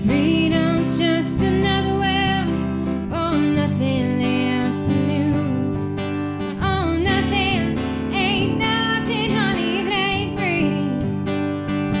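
A song with strummed acoustic guitar and a singer holding long notes with vibrato.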